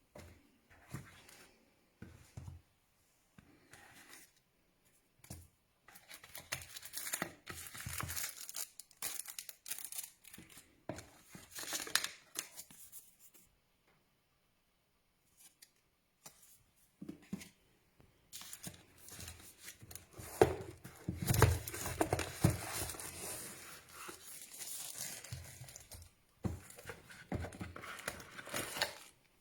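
Packaging being handled and opened: plastic wrapping tearing and crinkling, with small clicks and knocks, in irregular bursts. There is a quiet pause about halfway through.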